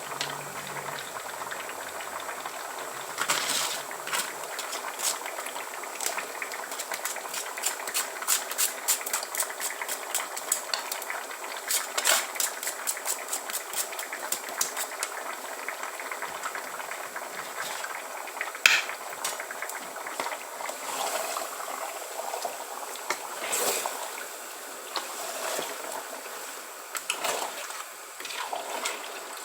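Spoon stirring and scraping in a pot of tomato stew with meat, giving many quick clicks and knocks against the pot, thickest in the first half. A steady bubbling hiss runs under them.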